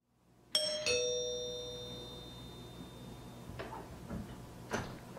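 Two-note doorbell chime, a ding-dong with the second note lower, about half a second in, both notes ringing on and fading over a couple of seconds. A few faint clicks follow near the end.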